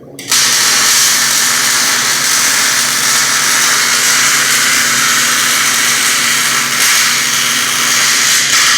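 Welding arc sizzling steadily as a bead is run around a joint. It starts abruptly a moment in and cuts off near the end, with a steady low hum underneath.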